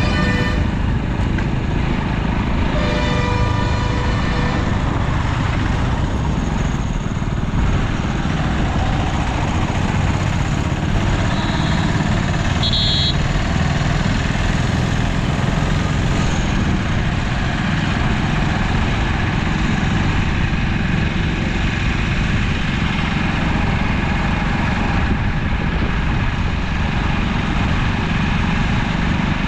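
Continuous road traffic noise, a steady loud rumble of engines and tyres. A vehicle horn sounds briefly about three seconds in, and a short high beep comes near thirteen seconds.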